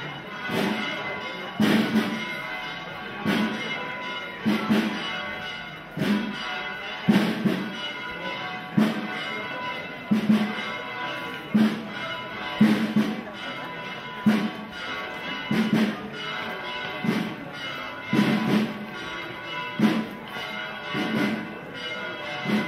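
Church bells pealing, with strong strikes at an uneven pace of about one a second over the steady ringing of the bells.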